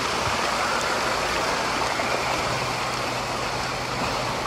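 Water cascading down the shallow steps of a children's water-play structure, a steady rushing splash.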